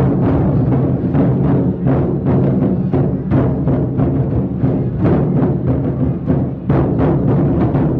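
Ensemble of large Chinese lion-dance drums beaten with wooden sticks in a fast, continuous rhythm, the deep drum tones ringing under a dense run of sharp strikes.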